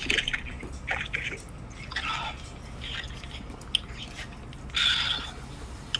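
Stifled, breathy laughter and whispering from several people, in short bursts, the loudest about five seconds in.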